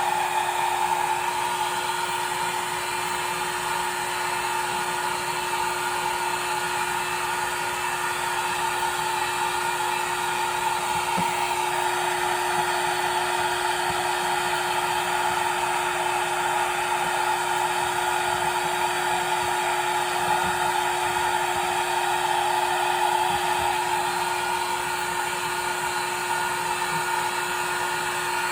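Hand-held hair dryer running steadily, blowing on a long-haired cat's coat, with an even airy rush and a constant hum.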